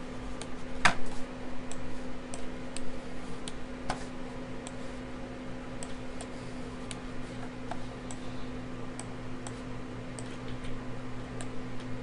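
Computer mouse and keyboard clicks, scattered and uneven at roughly one or two a second, over a steady low electrical hum.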